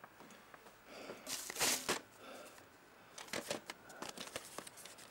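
VHS tape cases being handled and shifted against one another: a sliding, rustling scrape, then a run of light plastic clacks and taps.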